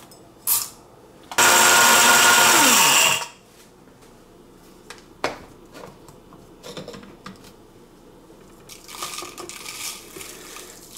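Mr. Coffee Multi-Grind blade grinder's motor running loud and steady for about two seconds, grinding coffee beans on its medium setting, then winding down with a falling hum. Near the end come light clicks and a soft rustle as the grounds are tipped into a paper coffee filter.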